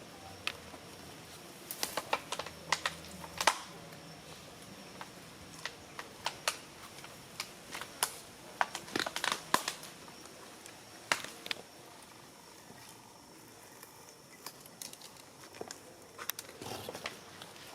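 Irregular crackling and crinkling: scattered sharp clicks and rustles, bunched in quick clusters through the first ten seconds or so, then sparser.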